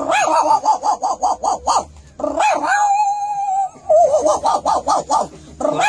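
A man's voice imitating a small dog: quick yapping, about six yaps a second, broken in the middle by one long held whining note, then more rapid yapping.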